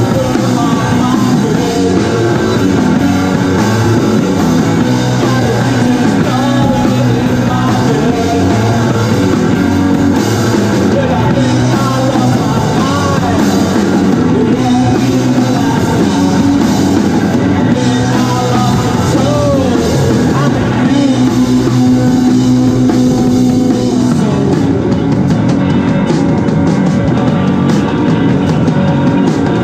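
Live rock band playing a song: drum kit and electric guitars together in a steady, loud groove.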